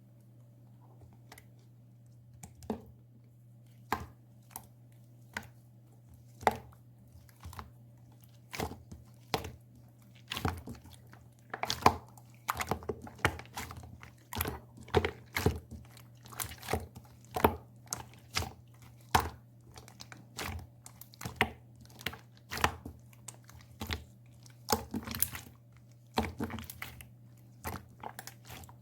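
Pearl slime being squished and pressed by hand, giving sticky clicks and pops. They come a few at a time at first and then quicker and louder.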